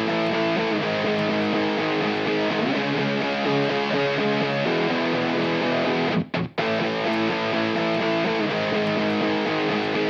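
Distorted electric rhythm guitar playing held chords, run through Guitar Rig 6 amp simulation with EQ and compression. It breaks off for a moment about six seconds in, then carries on.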